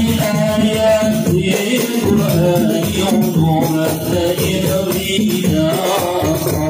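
A group of male voices singing an Arabic devotional hymn (sholawat) together in a slow melodic chant, heard loud and amplified through a loudspeaker.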